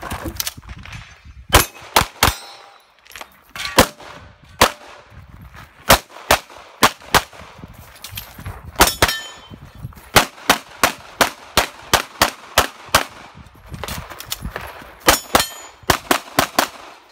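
Handgun shots fired rapidly in strings of two to five, broken by short pauses as the shooter moves between positions, with steel targets clanging and ringing when hit.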